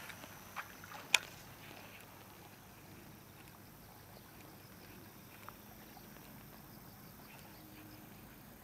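Faint outdoor background with a few sharp clicks or taps, the loudest just after a second in and a small one past the middle.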